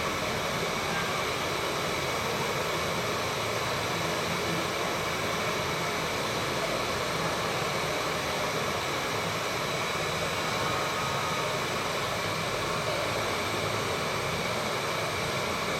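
Hot-air rework station blowing a steady hiss of air while it heats the chip and its solder pads on a phone mainboard.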